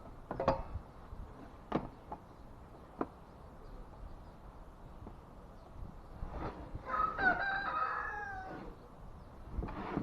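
A rooster crows once, a drawn-out call about seven seconds in, after a few sharp knocks in the first three seconds.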